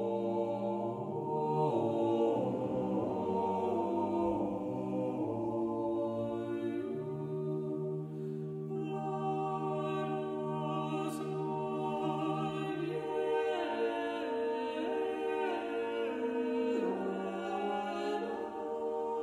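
Eight-voice a cappella ensemble of women and men singing slow, sustained chords that move to a new chord every few seconds.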